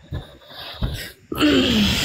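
A person's voice: one drawn-out sound falling in pitch, starting about one and a half seconds in, over a rush of noise.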